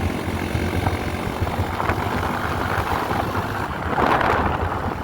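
Honda XR 250 Tornado's single-cylinder engine running steadily at speed, around 115 km/h, its valve clearances freshly reset from being too loose. Wind noise on the microphone swells twice.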